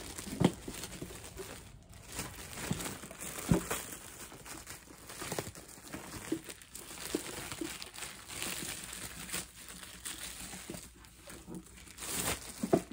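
Plastic packaging crinkling and rustling as it is handled and pulled apart to unwrap a baby wipe warmer, in an irregular stream of crinkles with sharper snaps now and then.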